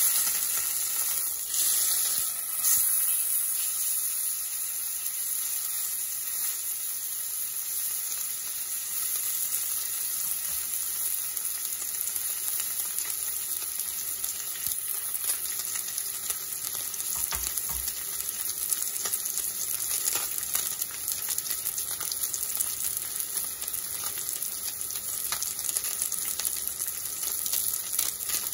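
Salmon fillet sizzling in hot oil in a cast-iron skillet, with a steady crackle of fine pops. It is a little louder in the first few seconds as the fillet is turned over with a spatula.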